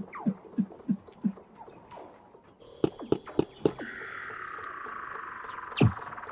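Underwater calls of Arctic marine mammals picked up by a hydrophone: low knocking pulses about three a second and a falling whistle, then a quick run of loud pulses that gives way to a steady buzzing call. Near the end a loud call sweeps steeply down in pitch.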